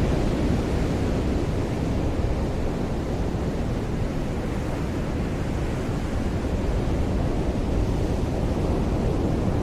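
Ocean surf washing onto a beach: a steady rush of breaking waves that eases a little midway and builds again near the end.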